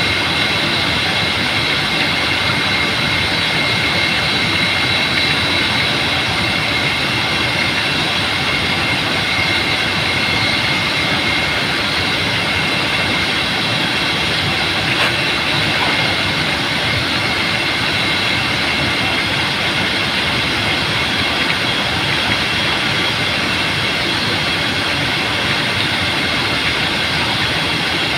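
Water jet gushing up out of open water, a loud, steady rushing roar with a thin steady whine running through it.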